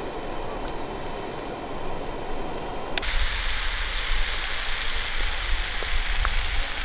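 Wind rushing over the microphone as a steady hiss. About three seconds in it cuts abruptly to a louder, brighter hiss with heavy low buffeting.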